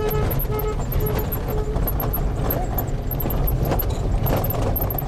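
Vehicle engine and body rumbling and jolting over a rough gravel track, with knocks and rattles from the bumps. A repeating electronic beeping tone, about three beeps a second, sounds for the first second and a half and then stops.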